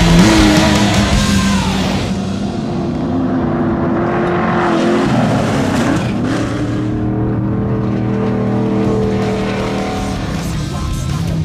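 Off-road race vehicle engine running hard and revving, its pitch falling about two seconds in and dipping briefly again around five seconds, with rock music underneath.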